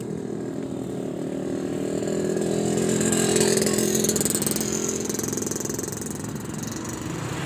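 Small motorcycle engine running as it passes close by on the road, swelling to its loudest about halfway and then fading away.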